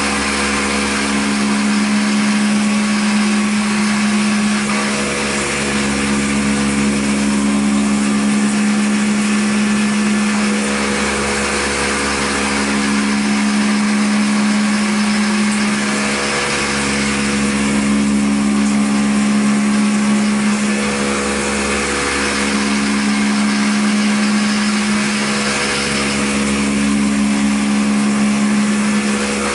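CNC milling machine cutting a metal plate with an end mill under flood coolant: a steady machining drone with a strong low hum over the spray's hiss, dipping briefly every five seconds or so.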